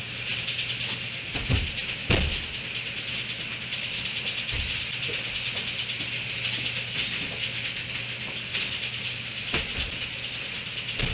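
Steady outdoor background noise from a fixed webcam microphone: a constant high-pitched hiss with a low hum underneath. Two dull thumps come about two seconds in and another near the end.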